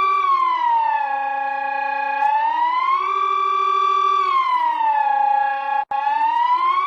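Siren-like electronic alert tone wailing slowly between a higher and a lower pitch. It holds each pitch about a second, and one full rise and fall takes about four seconds. It cuts out for an instant near the end.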